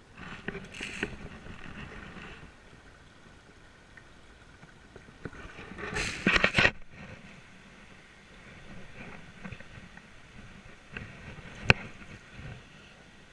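Water splashing in irregular bursts, loudest about six seconds in, with a single sharp click near the end.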